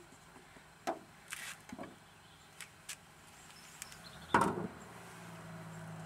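Light clicks and knocks from a 5-litre metal olive-oil tin being capped and moved off a wooden table, with one louder knock about four and a half seconds in.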